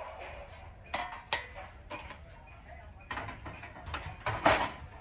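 Objects being handled: a series of irregular clicks and knocks, the strongest a little after four seconds in.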